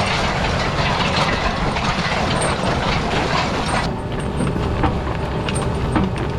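Tractor engine running steadily while it pulls a poly pipe laying rig, with a continuous clattering rattle from the rig and pipe over the low engine hum; the rattle eases a little about four seconds in.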